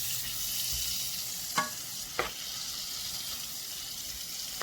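Food sizzling steadily in a hot pan as it is stirred, with a utensil clinking against the pan twice, about a second and a half in and again half a second later.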